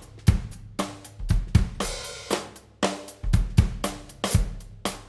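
Drum kit groove with bass drum, hi-hat and a flammed cross stick on the snare: a second stick struck on top of the cross stick just after it, giving a doubled click. A longer cymbal wash rings out about two seconds in.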